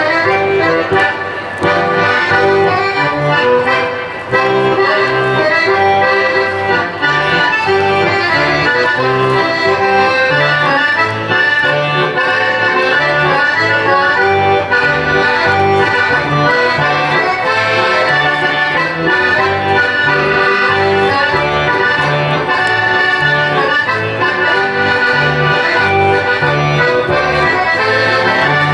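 Instrumental Dutch folk dance tune led by accordion, with a steady oom-pah bass line of about two notes a second.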